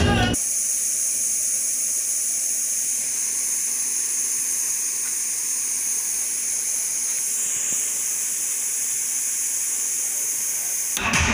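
Steady hiss from the amplifier's speakers with no music signal, strongest in the high treble. Music cuts off just as it begins and starts again at the very end.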